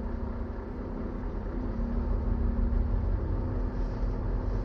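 Truck engine idling with a steady low rumble and a faint wavering hum.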